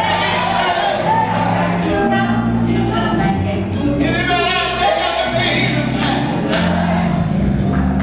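Live gospel group singing in harmony over a band, with held electric bass notes and a steady drum beat.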